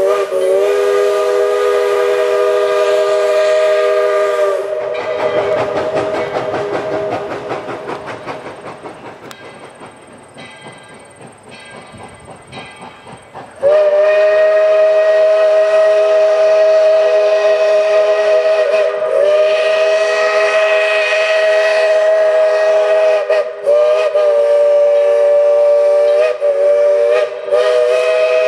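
Steam locomotive's chime whistle sounding a loud chord of several tones, cutting off about five seconds in. The train's cars then rattle and clack away, fading, until the whistle abruptly returns, held long with a few brief breaks.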